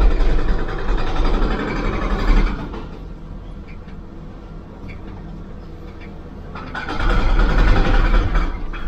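Hydraulic excavator working under load, heard from inside its cab: the engine and hydraulics rise in two loud surges, each a couple of seconds long, with a quieter steady run between them.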